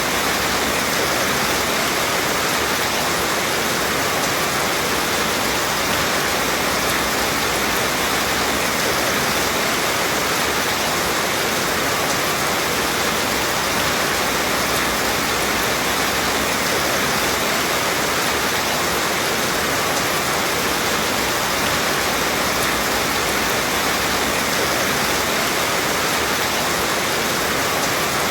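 Steady, even rainfall, a constant hiss without distinct drops or breaks.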